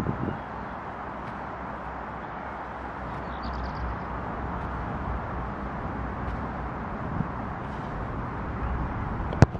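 Steady low outdoor background hum, then about nine seconds in a single sharp thud of a football being struck in a shot.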